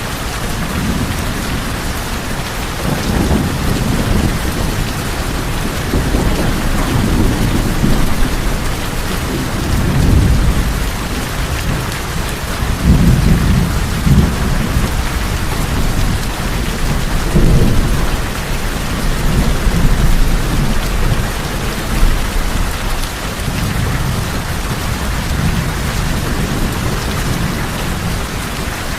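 Steady heavy rain on a tin roof, with low thunder rumbles swelling up several times through the middle.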